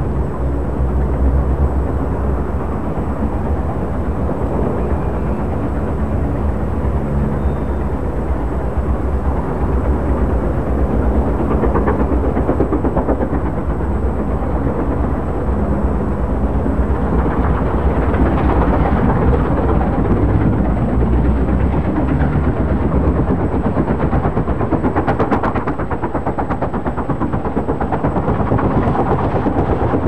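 LMS Stanier Duchess-class four-cylinder 4-6-2 steam locomotive working a passenger train, with rapid, even exhaust beats over the rumble of the train. The sound grows fuller in the second half as the locomotive draws close.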